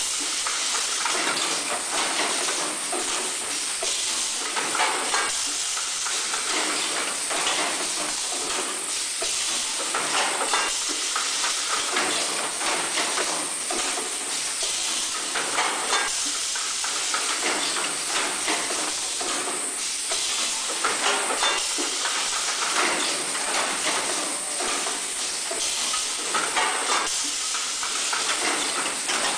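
Automatic brick-bag vacuum packing machine running: a steady hiss of air from its pneumatic and vacuum system, broken by frequent short bursts and knocks as its air cylinders fire and move.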